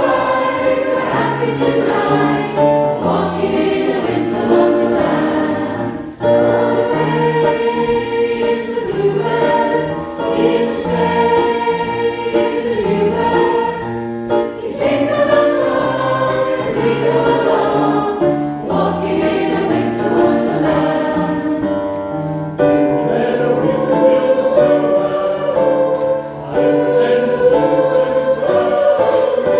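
Choir singing a Christmas song live in several parts, with short breaths between phrases about six seconds in and again near the end.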